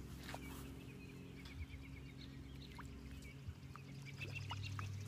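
Quiet outdoor ambience: a steady low hum with a row of faint chirping calls and a few light ticks.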